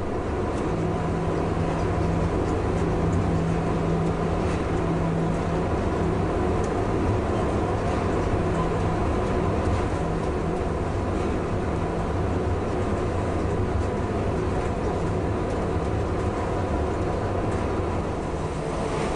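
Cab sound of a DB class 140 (E 40) electric locomotive running at a steady 80 km/h with a heavy freight train: a constant rumble of wheels on the rails with steady humming tones over it.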